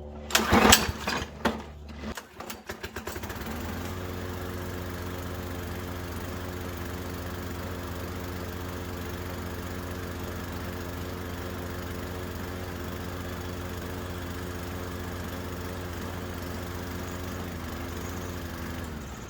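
PowerSmart 209cc push-mower engine pull-started, catching about three seconds in and running steadily on petrol with its carburetor jets freshly cleared of gum. Near the end it is shut off and winds down, its pitch dropping.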